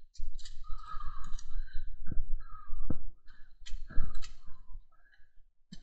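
Dry twigs and branches crackling and snapping in dense brush as someone pushes through, with a few sharper snaps about two, three and four seconds in.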